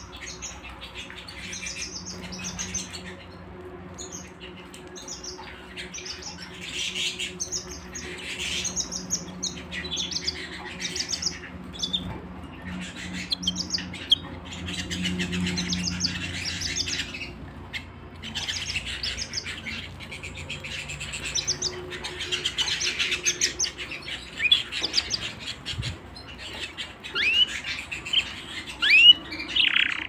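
A flock of domestic canaries chirping and twittering together, with short rapid high trills repeating throughout and a few louder, sharp whistled calls near the end.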